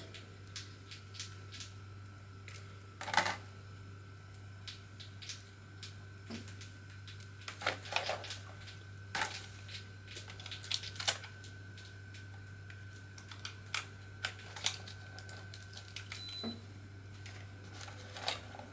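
Irregular clicks, taps and rustles of a USB soldering iron's cable and plastic packaging being handled, with the USB plug being pushed into a USB tester, over a steady low electrical hum.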